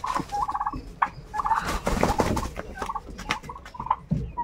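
Domestic turkeys gobbling in short rattling bursts, repeated several times, with a flurry of wing flaps as a turkey hops out of a wire cage.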